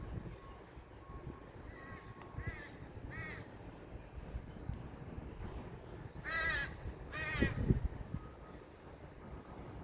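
Crow cawing: a few short, fainter caws, then two louder, longer caws about six and seven seconds in.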